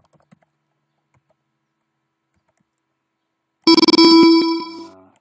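A few faint key clicks, then, about three and a half seconds in, a loud electronic alert tone: several steady pitches that open with a quick run of rapid clicks and fade out over about a second and a half.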